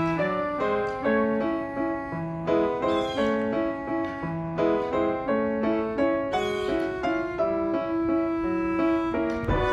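Background music led by piano: a brisk melody of short, quickly changing notes.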